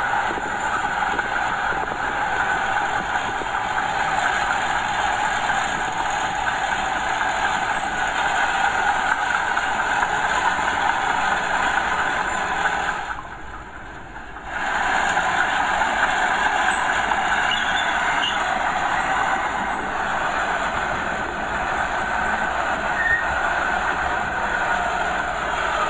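Small Komatsu crawler bulldozer working, a steady mix of engine and steel-track noise. The noise drops away briefly about halfway through.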